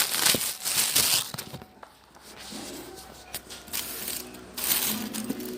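Plastic wrapping and paper rustling and crinkling as packaging is handled, loud at first, dying down about a second and a half in, and picking up again near the end.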